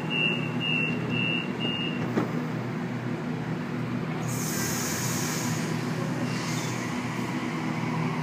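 Sydney Trains Waratah electric train's door-closing warning: a quick run of high beeps that stops about two seconds in, over the train's steady low electric hum as it departs. A burst of air hiss sounds about four and a half seconds in.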